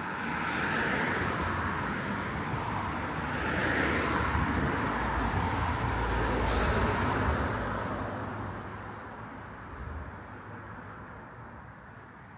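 Cars passing on a road, their tyre and engine noise swelling and fading about three times, with a deeper rumble from a heavier vehicle around the middle. The traffic noise dies down near the end.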